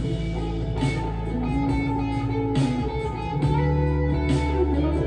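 Electric guitar music: held melody notes over a low accompaniment, with a soft hissing swell about every two seconds.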